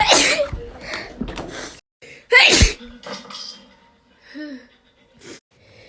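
A person sneezing: two loud, sudden sneezes, one right at the start and another about two and a half seconds in.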